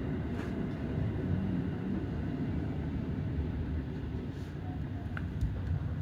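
JR Central 313 series electric train running slowly, a steady low rumble heard from inside the driver's cab, with a few faint clicks.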